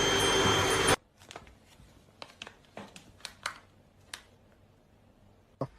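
Vacuum cleaner running as it is used on a dog's coat, cutting off suddenly about a second in; after that, a faint scatter of small clicks and rustles.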